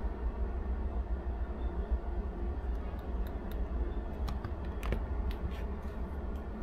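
Light, scattered clicks and taps as metal multimeter probe tips are moved on an ECU circuit board, over a steady low hum.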